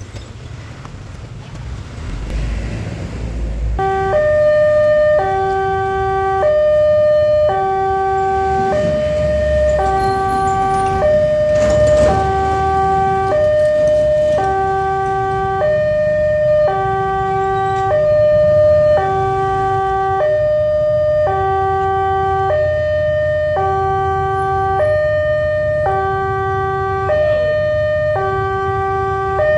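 Railroad level-crossing warning alarm sounding while the barrier arms come down. It is an electronic signal that alternates between a lower and a higher tone, changing about once a second, and starts about four seconds in, over low road-traffic rumble.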